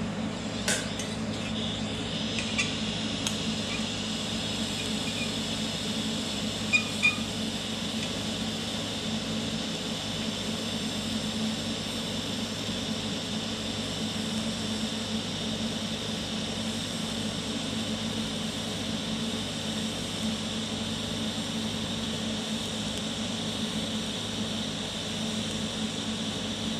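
Stick welding arc from a Vulcan OmniPro 220, laying a second pass over an earlier bead. It gives a steady crackle and hiss, with a few sharp pops in the first seven seconds.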